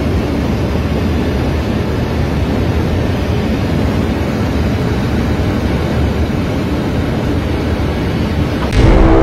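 Steady loud roar inside the cabin of a BMW M6 (E63) at high speed: wind and road noise over its V10 running hard. Music cuts in near the end.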